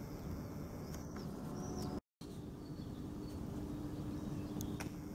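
Outdoor background noise with a few short bird chirps in the first couple of seconds. The sound cuts out completely for a moment about two seconds in.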